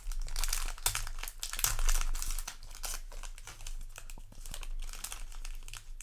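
Foil Yu-Gi-Oh! booster pack wrappers crinkling and crackling as they are handled. The crackling is busiest in the first couple of seconds.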